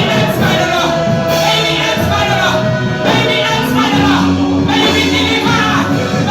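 Gospel praise music: voices singing a melody over steady instrumental accompaniment with held bass notes.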